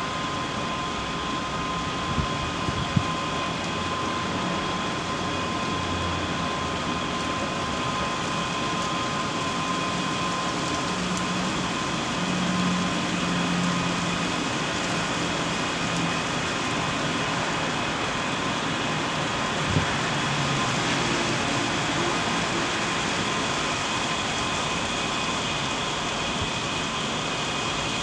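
Steady outdoor city background noise: a constant mechanical hum with a few thin, steady whining tones, under which a low rumble of traffic swells through the middle. A couple of small knocks come two to three seconds in, and one more just before twenty seconds.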